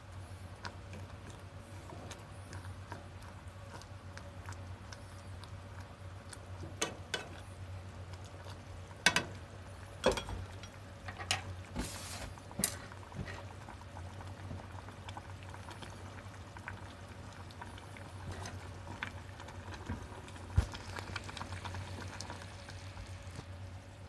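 Miso soup simmering and bubbling in a metal pot over a steady low burner hum, with scattered sharp clicks and knocks, the loudest about nine seconds in and about twenty seconds in.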